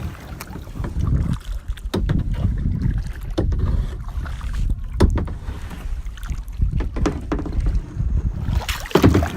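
Paddling in a canoe: a low wind rumble on the microphone with about five sharp, irregular knocks.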